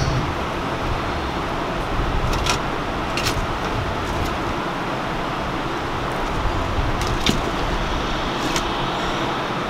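Steady low background rumble with a handful of short, light clicks, about two to three seconds in and again around seven to nine seconds in.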